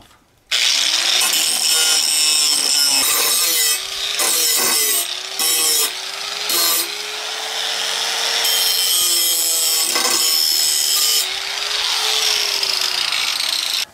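Angle grinder fitted with a grinding wheel, starting about half a second in and grinding the rough edges off steel plate. The motor's whine rises and falls and the grinding noise dips briefly a few times as the wheel bears on and eases off the metal, then it stops at the very end.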